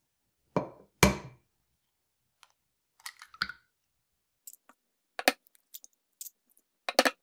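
Eggs being cracked open into a glass bowl: sharp taps of eggshell against a hard edge, two close together about a second in and more near five and seven seconds, with a light crackle of shell being pulled apart in between.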